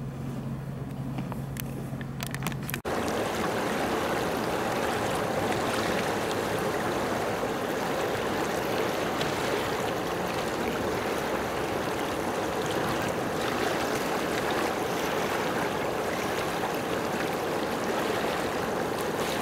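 Steady noise of moving water, which comes in abruptly about three seconds in after a low steady hum.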